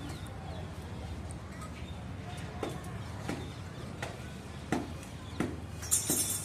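A series of sharp knocks at an even pace, about one every 0.7 s, starting a little under three seconds in, over a low steady hum; a short hiss comes near the end.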